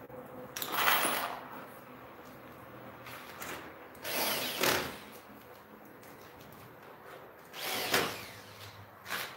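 Corded electric drill driving screws into a PVC window sash to fix its opening hardware, run in three short bursts a few seconds apart, with a brief blip near the end.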